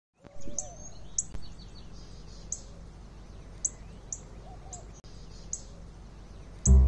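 Small birds chirping: short, sharp high chirps repeated every half-second to a second over a steady low background noise, with a brief louder burst of noise at the very start.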